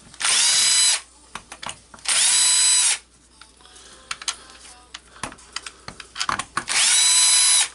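Cordless drill-driver motor whirring in three short runs of under a second each, each spinning up quickly to a steady whine, as it backs out the screws of a hammer drill's rear motor cover. Light clicks from the bit and handling come between the runs.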